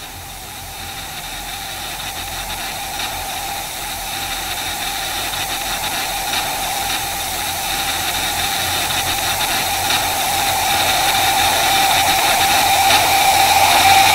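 Television static hiss with a wavering mid-pitched drone and a few faint crackles, swelling steadily louder and cutting off suddenly at the end.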